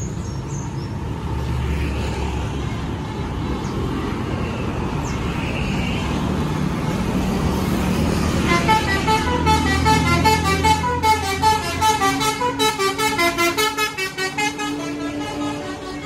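Bus 'basuri' musical air horn playing a quick melody of short stepped notes, starting about halfway through and running over the low rumble of road traffic.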